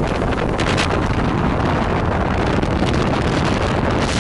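Steady wind buffeting the microphone on a rigid inflatable boat running at speed, mixed with the rush of water from its wake and the Evinrude 130 outboard motor.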